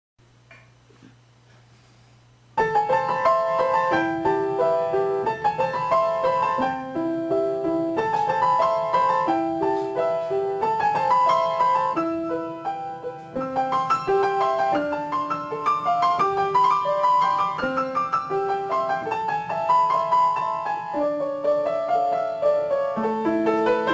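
Solo piano music, a flowing pattern of single notes, starting about two and a half seconds in after a faint low hum.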